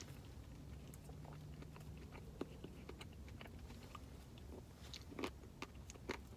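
Faint chewing of a mouthful of Blizzard soft-serve ice cream with cookie dough and brownie pieces, with scattered small mouth and spoon clicks, a few louder ones near the end.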